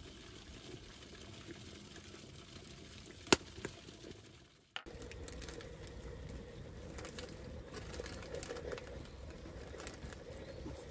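A Petromax Fire Kettle burning, its fire crackling softly under a steady hiss. A single sharp click comes about three seconds in, and the sound drops out briefly near the five-second mark.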